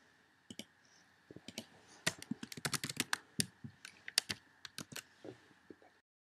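Computer keyboard and mouse clicks: a quick, irregular run of clicks and keystrokes that stops abruptly near the end.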